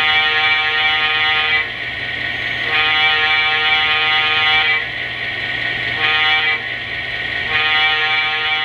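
Locomotive air horn sounding the grade-crossing signal: two long blasts, one short, then a final long one.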